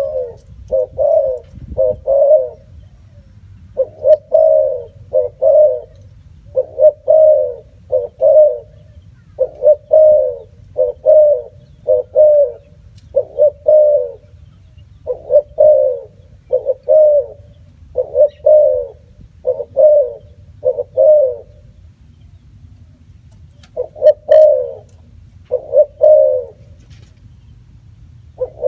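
Spotted dove cooing: short low coos repeated in pairs and threes, a phrase every couple of seconds, with a pause of about two seconds near the end.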